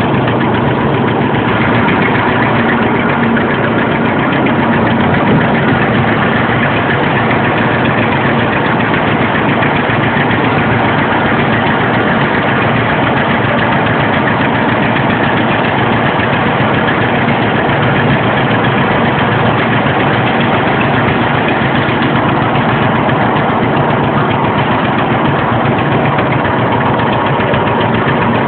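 1947 John Deere Model D's two-cylinder engine running steadily under open throttle as the tractor drives along.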